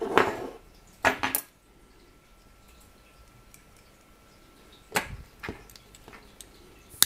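Workbench handling noises from tweezers, a small aluminium LED star board and a gas lighter being moved about on a plywood base. There are two scuffing knocks in the first second and a half, two more around five seconds in, and one sharp click at the very end.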